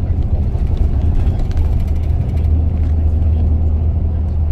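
Steady low rumble and drone of a moving vehicle, with a few faint clicks.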